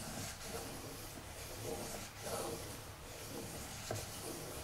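Steel knife blade stroked forward and back on a wet 800-grit Japanese waterstone: soft, repeated rasping swishes about every half second.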